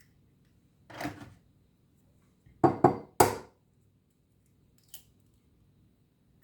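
Kitchenware knocking during food preparation: a short scrape about a second in, then three sharp knocks in quick succession, and one faint click near the end.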